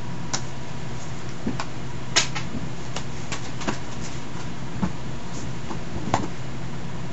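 Steady low hum and hiss of background noise, with a few faint, short clicks and ticks scattered through it.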